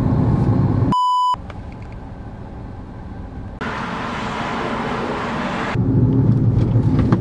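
Low road and engine rumble inside a Kia Ray's cabin while driving, cut by a short single electronic beep about a second in. Then a quieter stretch with a steady hiss for about two seconds, and the in-cabin driving rumble returns near the end.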